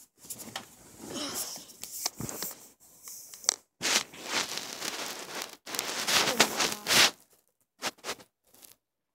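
Rustling and scraping handling noise as the recording phone is moved about, in irregular bursts that are loudest around the middle, then a few short crackles near the end.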